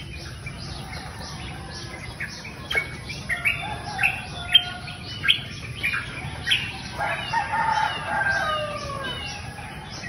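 Small birds chirping in short, sharp, repeated notes, with a longer, lower call about seven seconds in.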